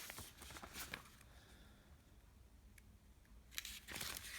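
Small plastic clicks and rattles of Lego Technic pieces being handled and pulled apart: a few clicks at first, a pause, then a busy run of clicking near the end.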